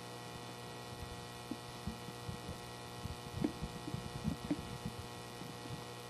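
Steady low electrical hum, with faint scattered knocks and thumps in the second half.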